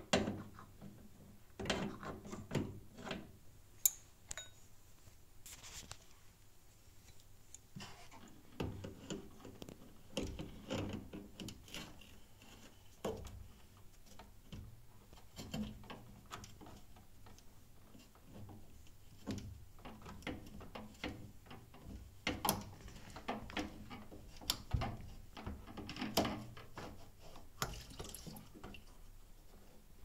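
Irregular clicks, taps and scrapes of metal slip-joint pliers gripping and working a spring hose clamp inside a washing machine, knocking against the clamp, hose and sheet-metal frame.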